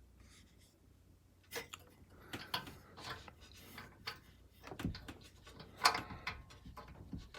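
Irregular clicks, taps and knocks of metal case hardware being handled: a screw and the metal mounting bar of a PC case's tempered-glass panel being worked into alignment. The sharpest knock comes near the end.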